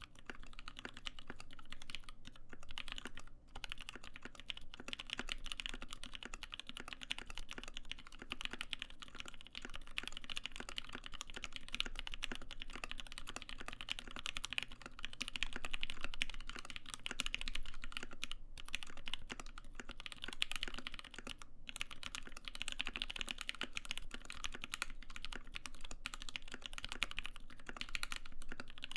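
Continuous typing on a Satisfaction 75 custom mechanical keyboard with lubed Zeal Tealios V2 linear switches, a carbon fiber plate and GMK keycaps: a dense clatter of keystrokes, broken by a few brief pauses.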